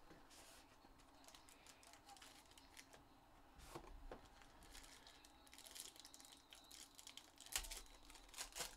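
Faint handling noise from opening a trading-card box and a foil-wrapped card pack: soft scattered clicks and rustles, then sharper foil crackles near the end as the wrapper is torn open.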